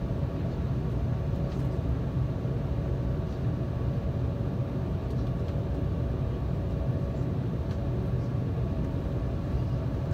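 Cabin noise inside an Embraer 195 airliner: a steady rumble from its General Electric CF34 turbofans and the airframe, with a faint steady whine above it, holding even throughout.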